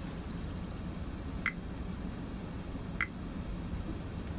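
Two brief chirps from a digital multimeter's buzzer, about a second and a half apart, as the test probes touch component leads.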